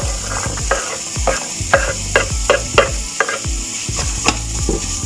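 Minced meat sizzling in a frying pan while a spatula scrapes and stirs it, in repeated strokes about two or three a second, as diced carrots are pushed off a wooden cutting board into the pan.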